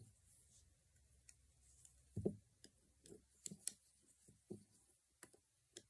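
Faint, irregular clicks and taps of a loom hook and yarn being worked over the pegs of a small plastic round knitting loom, with a soft knock about two seconds in.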